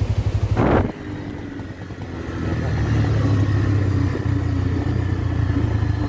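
A road vehicle's engine running, with fast even pulsing. Just under a second in there is a short rush of noise and the engine drops away, then it picks up again from about two seconds and runs steadily.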